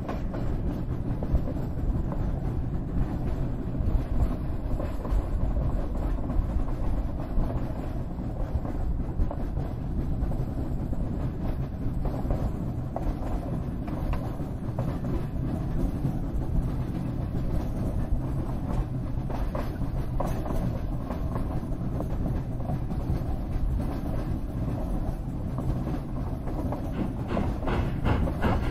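Nevada Northern 81, a 2-8-0 steam locomotive, running under steam, heard from on board: a steady rumble of its exhaust and running gear with wheels on the rails.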